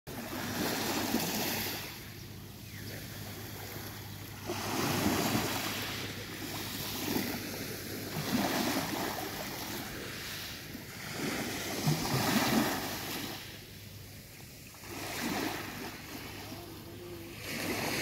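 Small, gentle waves washing onto a sandy beach, a soft rushing noise that swells and fades every few seconds as each wave breaks and draws back.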